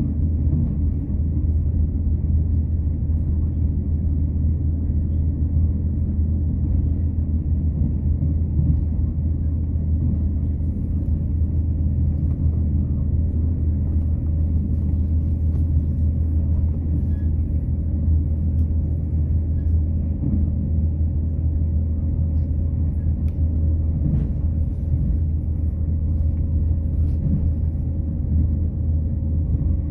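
Irish Rail diesel train running steadily along the line: a constant low rumble of engine and wheels on rails. A faint high whine joins about halfway through.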